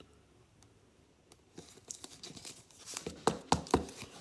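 A trading card being slipped into a clear plastic sleeve and holder by hand. Soft plastic rustling and light clicks, then a few sharp plastic taps a little after three seconds in.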